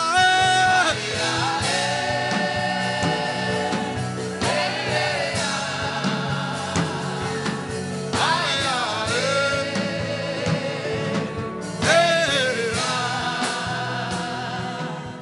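Gospel worship singing: voices holding long, wavering sung notes over sustained instrumental backing with a light steady beat.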